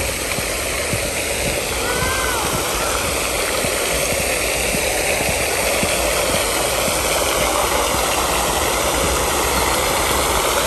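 Steady rushing splash of a pond's spray fountain, its jet of water falling back onto the surface, getting a little louder toward the end. A short chirp about two seconds in.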